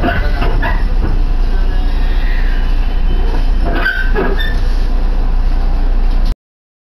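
Cabin noise of an Iida Line electric train running slowly into a station: a steady low rumble with high brake or wheel squeal. The sound cuts off abruptly about six seconds in.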